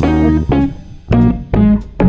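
Background music: plucked guitar notes over a bass line, a new note struck about every half second.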